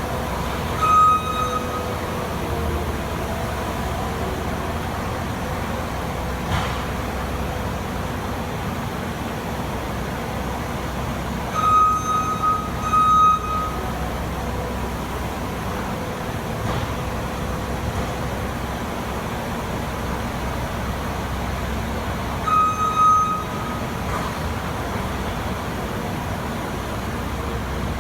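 New Holland L220 skid steer's diesel engine running steadily under work, with its reversing alarm beeping in short spells, about a second in, twice around the middle and twice near the end, as it backs up.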